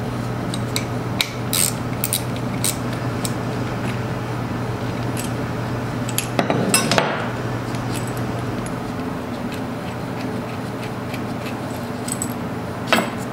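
Light metal clinks and clicks of a homemade bolt-and-washer puller, its nut, washers and sleeve, being worked against the oil pump body of a Laycock D-type overdrive, with a louder patch of clatter about six to seven seconds in. A steady low hum runs underneath.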